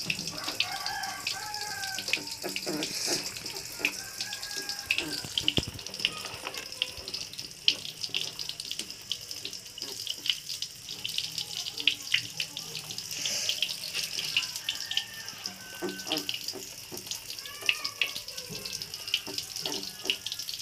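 Water splashing and sloshing in a plastic tub as hands scrub a small puppy in soapy water, with many small irregular splashes.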